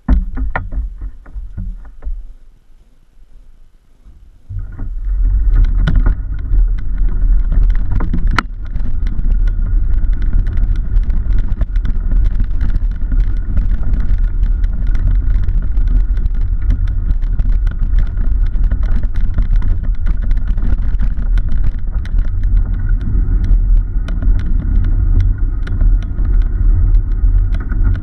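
Homebuilt cargo bike rolling along a path, heard through a camera mounted on its frame: a loud, steady low rumble of tyre and road vibration with many small clicks and rattles. It sets in about four seconds in, after a few knocks as the bike gets going.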